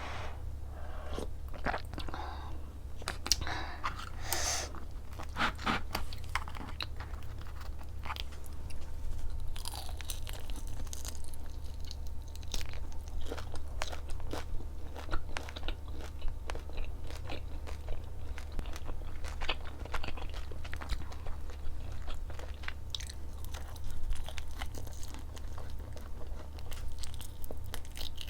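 Close-miked chewing and crunching of food, a steady run of crisp crackles and mouth clicks, over a low steady hum.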